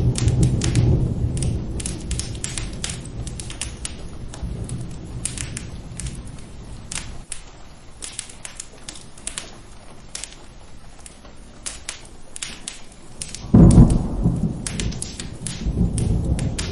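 Rain and thunder with a fireplace crackling: sharp pops and crackles throughout over the rain, a low rumble of thunder dying away over the first several seconds, then a sudden loud thunderclap near the end that rolls on in a rumble.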